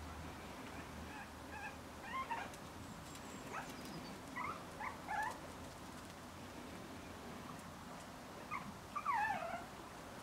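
Five-week-old Bolonka Zwetna puppies giving short, high-pitched squeaks and whimpers as they play. The squeaks come in small clusters about two seconds in and around four to five seconds in, with a louder run of falling squeals near the end.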